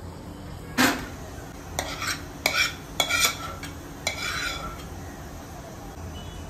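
A kitchen utensil clinking and scraping against metal cookware, about six sharp ringing knocks over a few seconds, the first the loudest.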